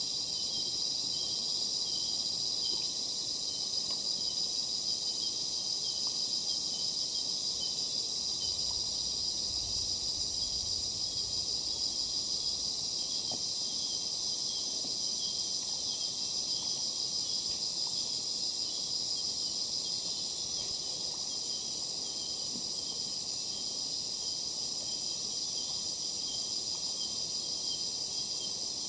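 Steady, high-pitched chorus of many insects, with a lower, pulsing chirp repeating throughout.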